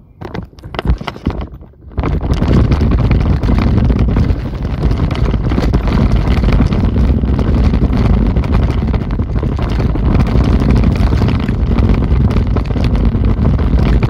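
A few knocks in the first two seconds, then from about two seconds in a loud, steady, low rumbling noise.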